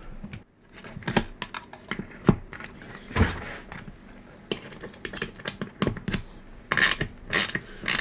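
Irregular light clicks and taps of a steel feeler gauge and small hand tools being handled against an aluminium extrusion frame, with a few brief scrapes.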